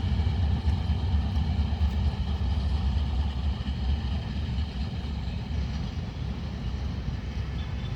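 Express train's coaches rumbling past on the track, a steady low rumble that slowly fades as the train goes by.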